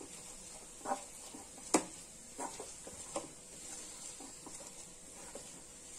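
Bottom of a steel tumbler mashing boiled potato with carrots and beans in a kadai: irregular soft knocks and squishes as it presses against the pan, the loudest just under two seconds in.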